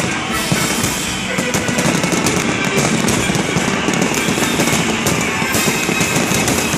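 Fireworks going off in a rapid, continuous barrage of bangs and crackles, growing denser about a second and a half in, with music playing underneath.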